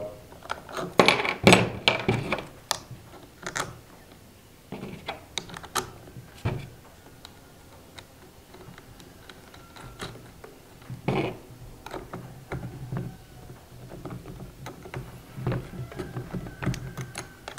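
Hand work on a cordless grass trimmer's cutting head as its blades are swapped for plastic ones: scattered small clicks and knocks of plastic and metal parts. A cluster of louder knocks comes a second or two in and another later on.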